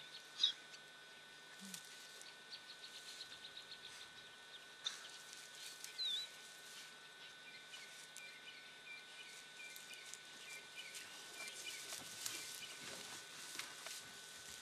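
Faint crackling and rustling of dry grass as a honey badger forages through it, with a louder click about half a second in. A bird chirps once about six seconds in.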